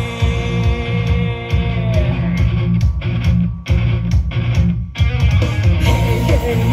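Upbeat idol-pop song with a heavy bass beat and guitar, played loud through a live-house PA. Held notes ring out over the first two seconds, the track breaks off briefly a few times around the middle while the bass carries on, and singing comes back near the end.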